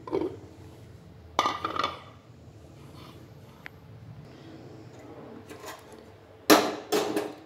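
Crockery and metal clinking against an aluminium pressure cooker as chopped coriander is tipped in off a plate: a few short knocks in the first two seconds, then a louder clatter about six and a half seconds in, over a low steady hum.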